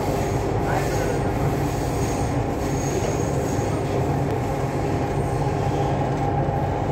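Chennai Metro electric train running, heard from inside the passenger car: a steady, loud rumble of wheels and drive. A thin high whine rides on top for a couple of seconds, starting about a second in.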